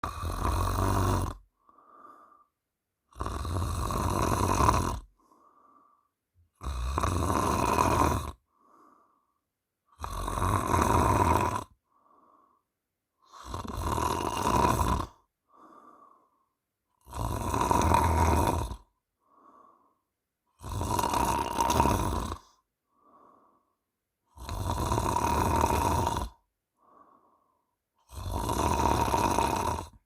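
A sleeping woman snoring loudly in a steady rhythm, one long snore about every three and a half seconds, each followed by a short faint breath.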